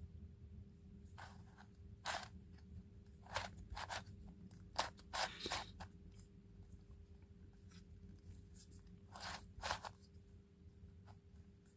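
Plastic pieces of a Sloppy Cube twisty puzzle clicking and scraping as its layers are turned by hand, in short irregular clusters with pauses between.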